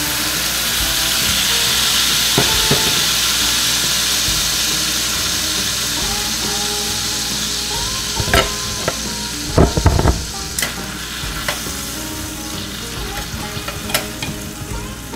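Soy sauce and calamansi marinade sizzling hard as it hits a hot pan of fried beef slices, the hiss slowly easing as it comes up to a simmer. In the second half, metal tongs clack against the stainless pan several times as the meat is stirred.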